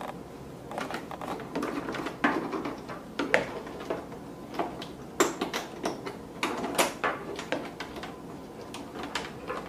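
Phillips screwdriver working a small screw out of the plastic base of a Zojirushi hot water boiler: irregular light clicks and scrapes of the tool and the plastic housing being handled, with a few sharper taps.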